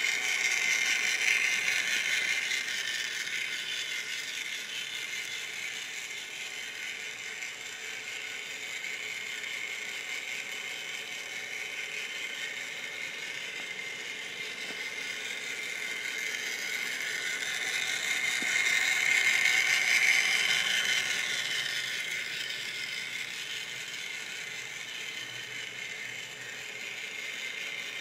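Vintage Kleinbahn 80028 HO-scale steam locomotive running: its gear-driven motor makes a steady, noisy mechanical whir and gear rattle. It swells louder about a second in and again about two-thirds of the way through as the engine passes close.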